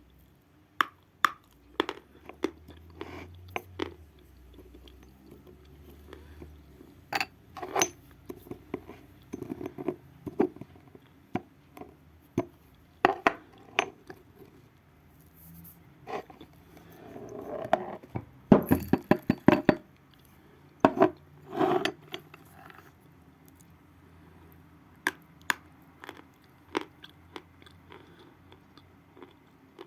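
Lumps of natural chalk crunching and cracking in sharp, irregular snaps, with a quick flurry of cracks a little past halfway.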